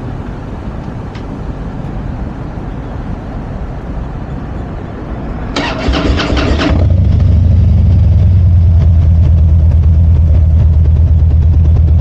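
2007 Harley-Davidson FXDC Dyna Super Glide's Twin Cam 96 V-twin being started: about halfway through, the electric starter cranks for about a second, then the engine catches and settles into a loud, steady idle. Before that there is only a steady low background rumble.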